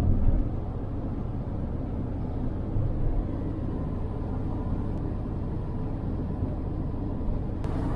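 Steady road and engine rumble inside a moving vehicle. A brighter rushing hiss comes in near the end.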